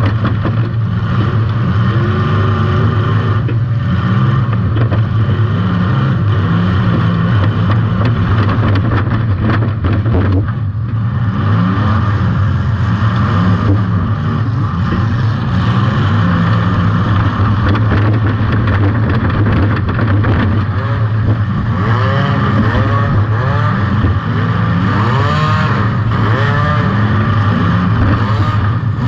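Compact demolition derby car's engine running hard, heard from on board at the car's rear, with the revs repeatedly rising and falling, most often in the last several seconds.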